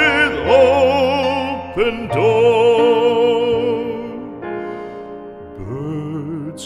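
Classical-style solo singing with a wide vibrato on long held notes, over instrumental accompaniment. About four seconds in, the voice drops out briefly for a few steady instrumental notes, then comes back more softly.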